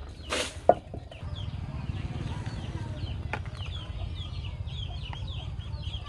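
Chicks peeping rapidly and repeatedly in high, short chirps over a low steady rumble. A brief burst of noise and a single sharp knock come within the first second; the knock is the loudest sound.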